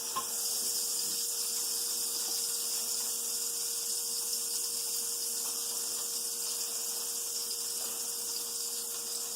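Butter and eggs sizzling steadily in a frying pan, with a steady hum beneath.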